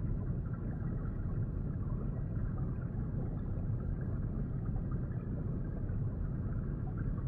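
Steady, muffled low rumble of underwater ambience.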